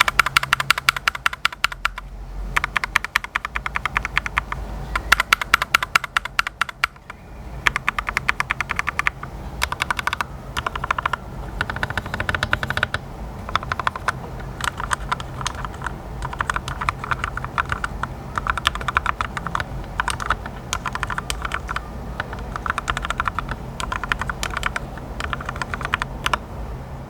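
Typing on a compact 68% mechanical keyboard with linear red switches: rapid runs of keystroke clacks with short pauses between bursts, over a faint steady low hum.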